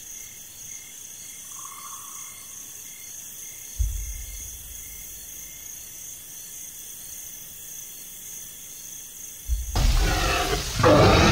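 Crickets chirping in a steady, even rhythm, with a low rumble coming in about four seconds in. Near the end a loud animal roar starts and carries on.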